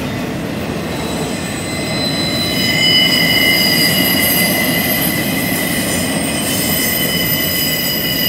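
Freight train wheels squealing as welded-rail rack cars roll through a curve: several steady high-pitched tones that grow stronger about two seconds in, over the low rumble of the cars on the rails.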